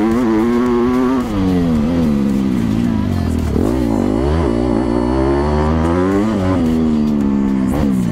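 Motocross bike engine, heard from the rider's helmet, revving up and down with the throttle. The pitch drops about a second in, falls and wavers as the bike slows into a corner around three to four seconds in, then climbs again as it accelerates out.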